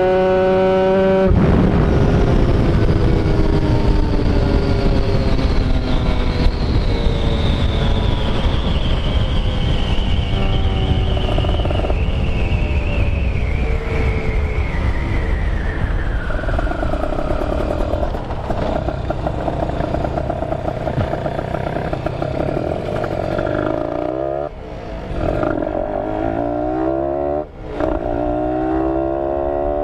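Motorcycle riding on the road: the engine runs under a heavy rush of wind noise. Its pitch sinks slowly over the first half, then rises and falls with throttle changes later on, with two short drops in loudness near the end.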